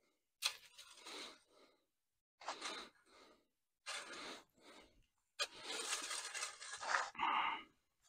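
Steel shovel scraping and pushing dry concrete mix: several short scrapes in the first half, then a longer stretch of scraping in the second half.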